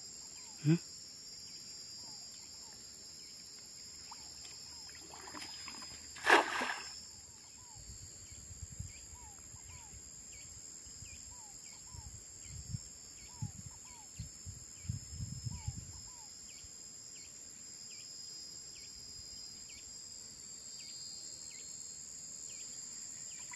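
Outdoor ambience of a steady high insect drone with repeated short bird chirps. About six seconds in comes one loud splash in the water, followed by a stretch of low rumbling with small knocks.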